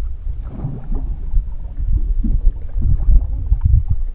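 Wind buffeting the microphone: a loud, uneven low rumble that swells and drops, with faint light ticks of water over it.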